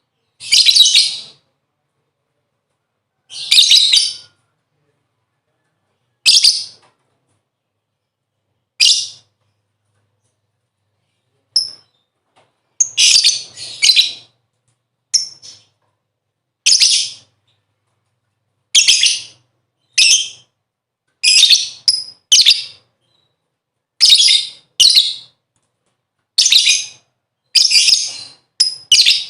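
Lovebird giving short, shrill, chattering calls, the call it uses to court a mate. The calls come singly every few seconds at first, then more often and often in quick pairs.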